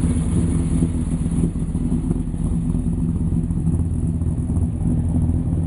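Chevrolet Chevelle's engine running steadily at low revs as the car creeps past.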